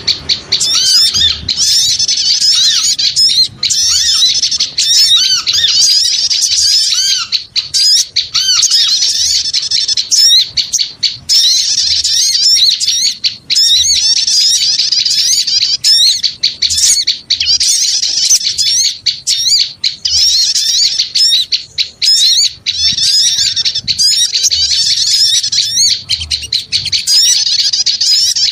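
Many small birds chirping and chattering at once in a dense, unbroken, high-pitched chorus. This is a bird-lure call of noisy small birds, played to draw other small birds in.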